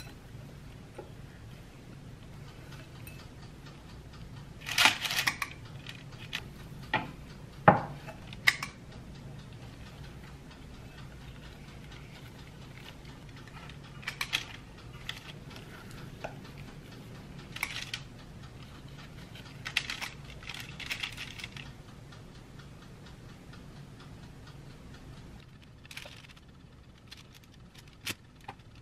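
Scattered scrapes, clinks and taps of cookie-dough handling: a silicone spatula in a glass mixing bowl and a metal spring-release cookie scoop dropping dough onto a parchment-lined baking tray, with the loudest knocks about five and eight seconds in. A steady low hum lies underneath.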